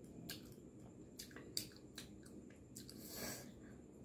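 Faint wet mouth clicks and chewing sounds, a few scattered sharp ticks, with a soft rush of noise about three seconds in.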